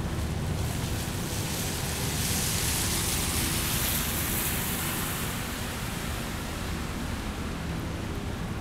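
Rain on a wet city street with traffic, and the hiss of a vehicle's tyres on the wet road swelling about two seconds in and fading away by about six seconds.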